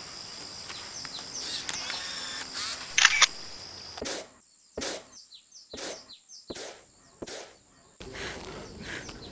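Countryside ambience of insects and birds, a steady high insect drone with repeated short falling chirps. About three seconds in come two sharp clicks close together, a DSLR camera shutter firing. From about four seconds, soft swishes about every 0.8 s, in time with a hand fan being waved.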